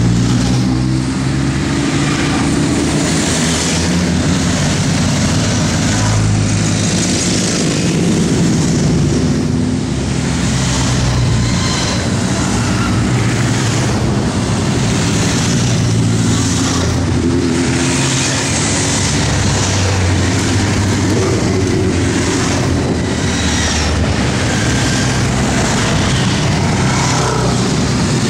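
A procession of motorcycles, sports bikes and cruisers, riding past one after another, their engines running at low road speed with several exhaust notes overlapping. The sound stays steady and loud as bike after bike goes by.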